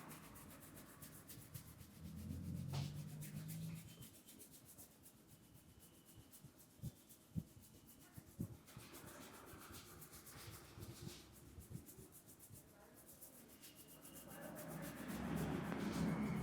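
Hands rubbing and kneading coconut-oiled hair and scalp in a head massage, swelling louder twice, with a few short clicks near the middle.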